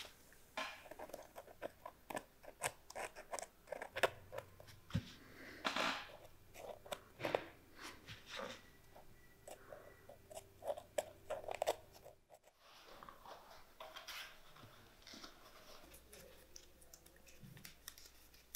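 A steel pick scraping and prying at the dry, brittle leather of an old boot upper, a run of small crunching clicks and scrapes. About two-thirds of the way through the sound cuts briefly, and quieter, sparser handling noises follow.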